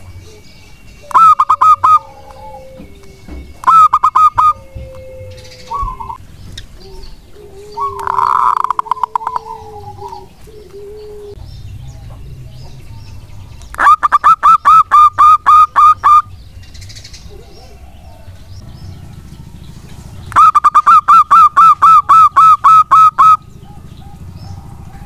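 Zebra dove (perkutut) calling: several loud trains of rapid staccato notes, about five a second, each lasting one to three seconds, the last two the longest. Softer, lower gliding coos come in between.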